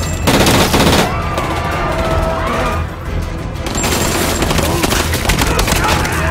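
Bursts of rapid automatic gunfire: a dense volley in the first second, then another from about four seconds in, over a film music score.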